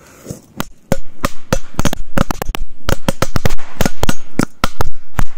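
A 'machine-gun' string of small firecrackers going off under an upturned enamel bowl held down by hand: a brief fuse hiss, then a rapid, irregular run of sharp bangs, about five a second, for some four seconds.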